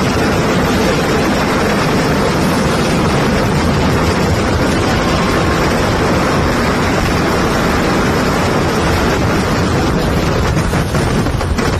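Fireworks display: so many crackers and shells going off at once that they merge into a loud, steady roar. Separate sharp crackles stand out near the end.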